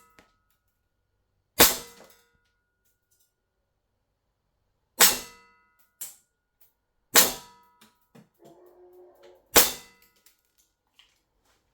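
CO2 gas-blowback airsoft pistol, an ASG STI 2011 Combat Master, firing four loud single shots a few seconds apart. Each shot is a sharp crack with a brief metallic ring.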